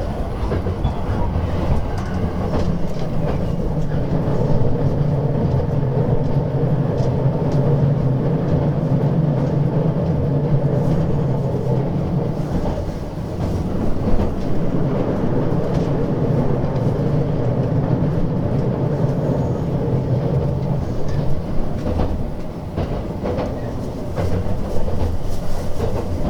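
Running noise heard inside a JR West 287-series electric limited-express train in motion: a steady low rumble of wheels on rails and a hum, with scattered clicks as the wheels pass over rail joints.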